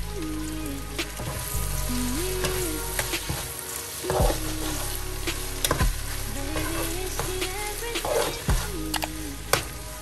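Fried rice with mixed vegetables sizzling in a metal pot on the stove while a metal spoon stirs and turns it, the spoon knocking and scraping against the pot a few times.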